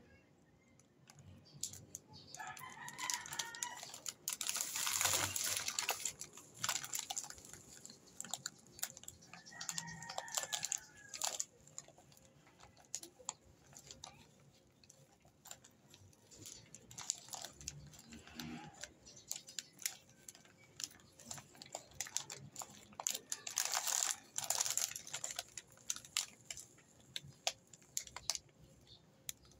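Plastic snack packets crinkling and rustling as they are handled, louder in a few bursts. A rooster crows in the background twice, each call arching up and down in pitch for about two seconds.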